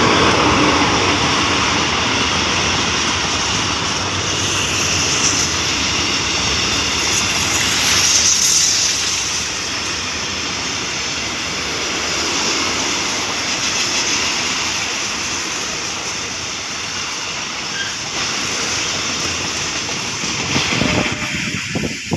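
Container freight train passing close by: the diesel locomotive's engine, then a steady roar of container wagons rolling over the rails. The roar eases and breaks into a few separate knocks about twenty seconds in as the last wagons go by.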